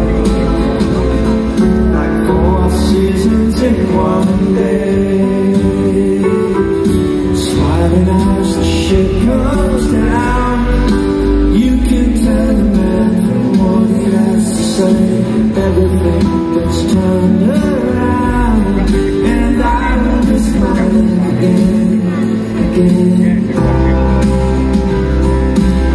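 Live band music through a PA system: acoustic guitar, electric bass, drums and keyboards playing a mid-tempo song, with a man singing.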